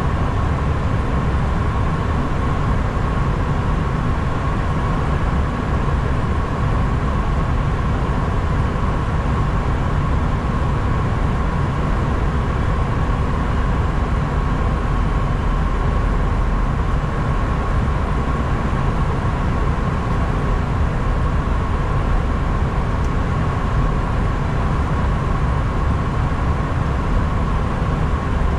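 Steady rushing noise inside an Airbus A320 cockpit, with a constant whine running through it and no change in level.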